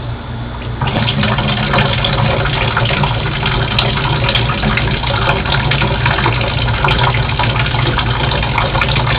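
Water pouring and splashing down from a leaking balcony above into a bowl, a steady rush that starts loudly about a second in once the hand blocking it is taken away. The speaker takes the leak to mean water collecting under the deck flooring, probably from rotten wood upstairs.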